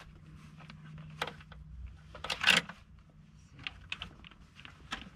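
Handling noise as a fabric cover on a tube is slid into place and hung: scattered light clicks and knocks, with one louder scraping rustle about two and a half seconds in.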